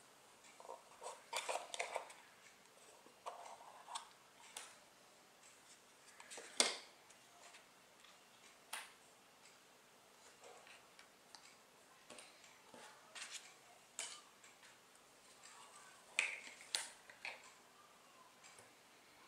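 Small cardboard boxes and a paper card being handled on a table: scattered light taps, clicks and rustles as a box lid comes off and its contents are lifted out, with the sharpest click about six and a half seconds in.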